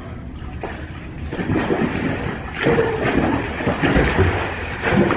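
Water splashing and sloshing, with a few sharper splashes.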